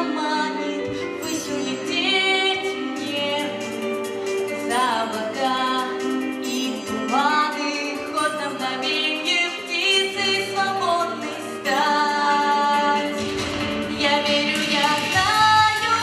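A young woman sings a song into a handheld microphone, with sustained notes and pitch glides, over a steady instrumental accompaniment.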